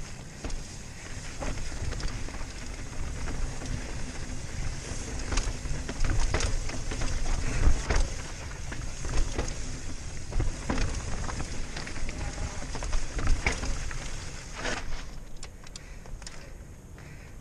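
Rocky Mountain Slayer full-suspension mountain bike rolling fast down a rocky dirt trail, with tyres running over rock and gravel and the bike knocking and rattling on the bumps. A steady low wind rumble sits on the helmet-camera microphone, and it all gets a little quieter near the end.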